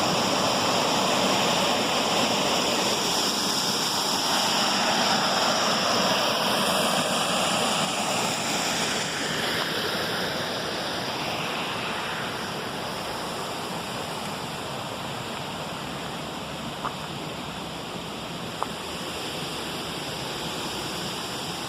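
Waterfall, steady rushing and splashing water that eases off somewhat about halfway through. Two small clicks near the end.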